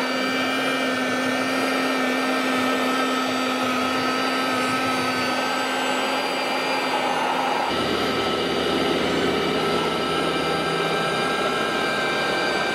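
1/16-scale RC Iveco vacuum road sweeper model running, its electric motors giving a steady whir with several high whining tones. The sound changes abruptly about eight seconds in, with a lower hum joining.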